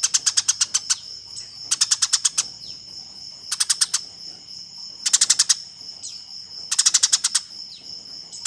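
Eurasian tree sparrows giving rapid, agitated chirping fights: five bursts of fast chirps, each about ten notes a second and lasting up to a second, separated by short pauses. A steady high-pitched tone runs underneath.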